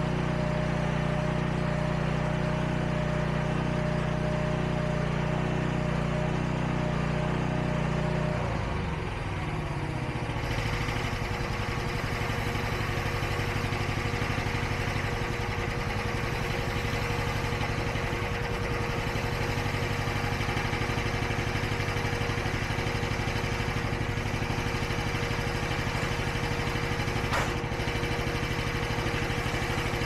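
Huayee SHY360 mini skid steer's engine running steadily. About eight seconds in its note drops and it settles into a lower, steady run, with a single sharp knock near the end.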